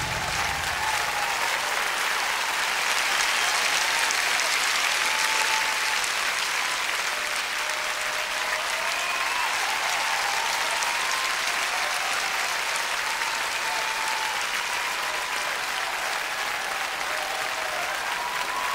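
Large audience in a theatre hall applauding steadily.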